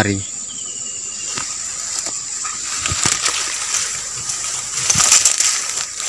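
A steady, high-pitched insect drone, with rustling and a few light knocks from the camera being carried through leafy undergrowth; the rustling swells about five seconds in.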